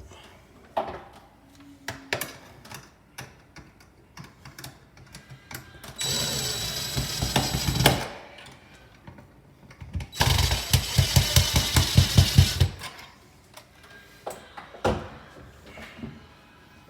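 Cordless power driver running twice in loud bursts of a couple of seconds each, driving screws to fix a light fixture's mounting bracket; the second burst has a rapid hammering pulse. Before that, scattered clicks and knocks of parts being handled.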